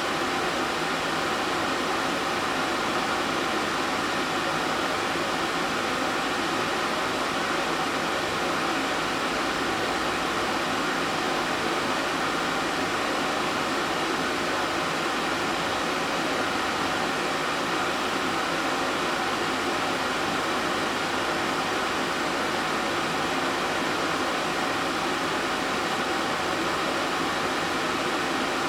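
Steady, unchanging noise with a faint hum underneath, of the kind a fan or air conditioner running in a room makes.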